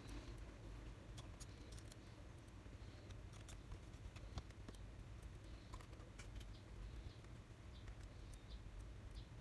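Faint scattered clicks and taps of hands and small tools working on a laptop's plastic and metal parts, over a low steady hum.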